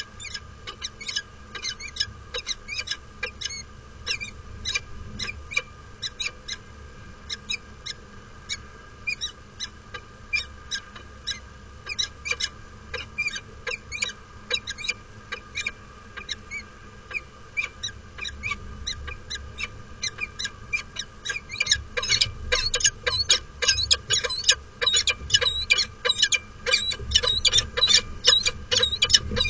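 Peregrine falcons calling at the nest in the courtship display: short, sharp calls repeated a few times a second. From about twenty seconds in they come faster and louder.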